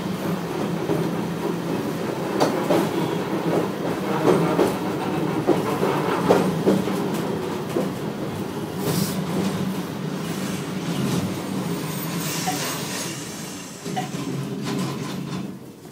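Tosa Electric Railway 700-series tram running, heard from aboard: its nose-suspended traction motors and gears give a steady hum, with wheels clicking over rail joints.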